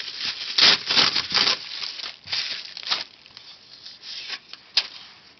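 Bubble wrap packaging rustling and crinkling as a knife is unwrapped by hand, in a run of noisy bursts that die down after about three seconds, with one sharp click near the end.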